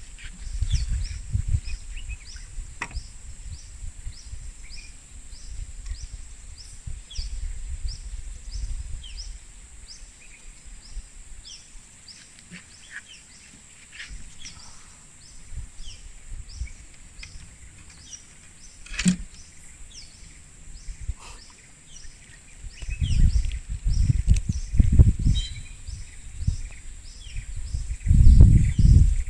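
Forest ambience: a steady high-pitched insect drone with a small creature's chirp repeated about three times a second. Low rumble on the microphone comes and goes and is strongest near the end, and there is one sharp click about two-thirds of the way through.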